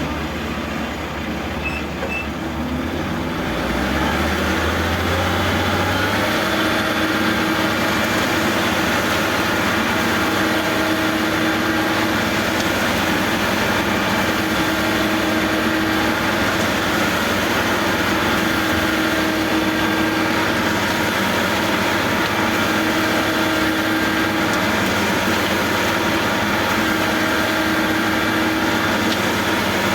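Construction machinery engine running steadily at a concrete pour, growing louder about four seconds in and then holding an even, continuous hum.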